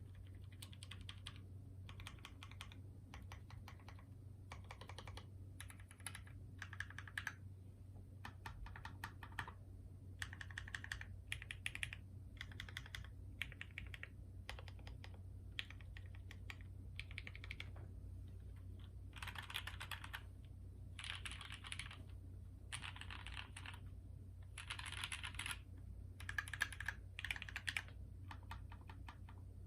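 Typing on a custom HHKB-layout mechanical keyboard with lubed and filmed Dogikon cream-stem linear switches on an aluminum half plate: runs of quick key presses in bursts with short pauses between them. A steady low hum lies underneath.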